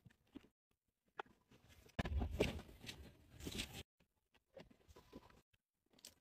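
Faint rustling and light knocks of goods shifting in a wire shopping cart as it is pushed, with a louder stretch of rumbling handling noise about two seconds in that lasts under two seconds.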